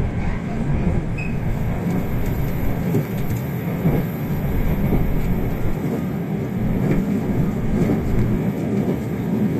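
JR Central 383 series Shinano limited express running at speed, heard from inside the passenger car: a steady low rumble of wheels and running gear with a few faint clicks.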